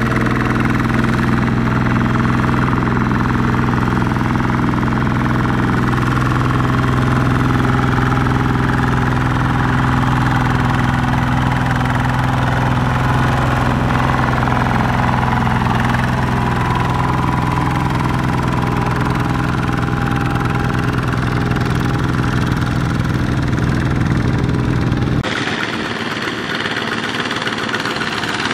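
Two-wheel power tiller's single-cylinder diesel engine running steadily under load as it hauls a loaded trailer through deep mud. Near the end the low engine note cuts off abruptly, leaving a quieter, thinner engine sound.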